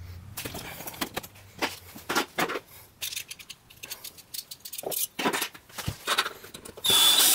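Scattered small clicks and knocks on a wooden panel, then near the end a cordless drill-driver runs briefly, driving a screw into a concealed cabinet hinge.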